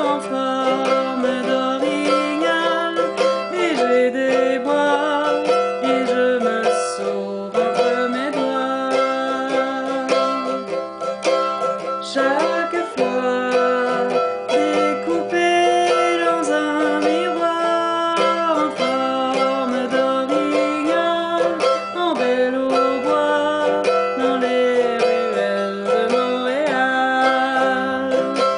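A woman singing in French while strumming a mandolin.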